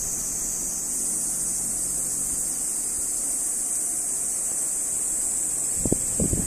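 Outdoor ambience: a steady high-pitched hiss, with a few short gusts of wind on the microphone near the end.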